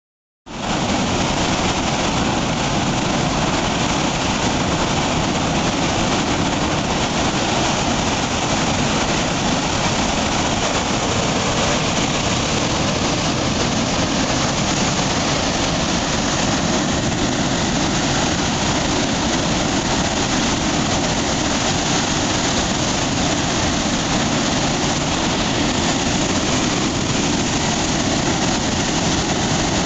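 Dam bypass outlet discharging: a thick jet of water shooting from the concrete wall and crashing into the churning plunge pool below, a loud, steady roar that starts about half a second in.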